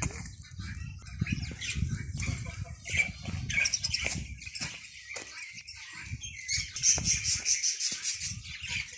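Many small birds chirping at once, with wings flapping and rustling among them.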